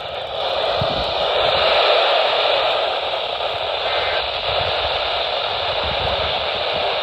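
Steady radio static: a receiver hissing on a weak signal, with no voice or tone coming through.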